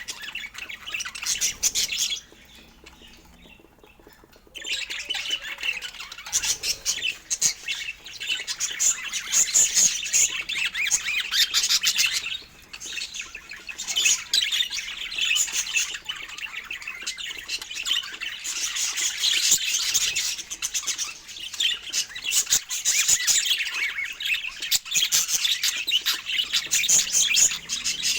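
Budgerigars chattering and chirping in rapid, high-pitched warbles and squawks, with a pause of a couple of seconds near the start.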